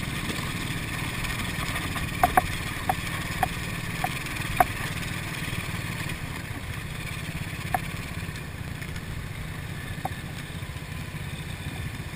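ATV engine running steadily at low riding speed over rough grassland, with scattered sharp clicks and knocks as the machine rattles over bumps. The engine sound eases a little in the second half as it slows.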